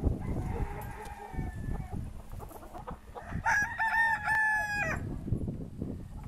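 Brahma roosters crowing twice: a fainter, lower crow starting just after the beginning and lasting about a second and a half, then a louder, higher crow about three and a half seconds in.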